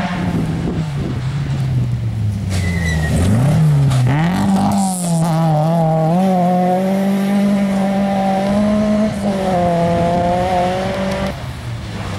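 Rally car engine sliding through a gravel corner: the revs fall over the first few seconds, then climb sharply about four seconds in as it accelerates hard out of the turn. The engine is held at high revs until near the end, when it drops away.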